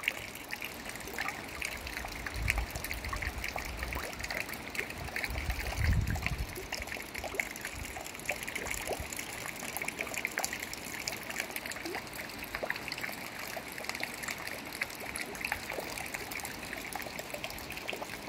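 A thin stream of water trickling steadily into a bronze fountain's cupped hand and spilling over it, a continuous patter of small splashes. Two brief low rumbles come about two and six seconds in.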